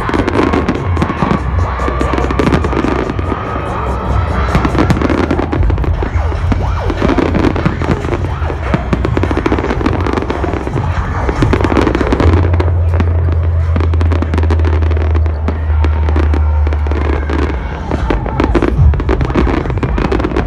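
Rapid fireworks bangs and crackling, many reports in quick succession, over loud electronic dance music with a deep held bass note in the middle stretch.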